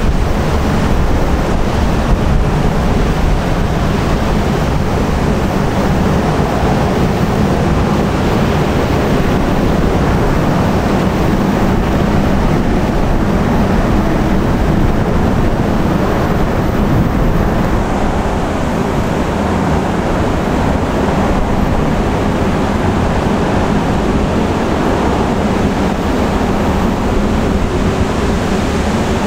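A passing ship's low, steady engine drone, mixed with the wash of water and wind buffeting the microphone.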